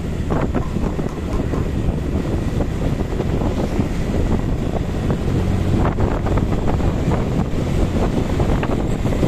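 Wind buffeting the microphone on a moving motorbike, with motor scooter engines running steadily underneath.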